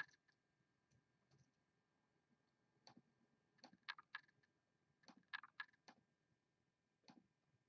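About ten faint computer mouse clicks, several bunched together in the middle, as a list is copied and pasted into a spreadsheet.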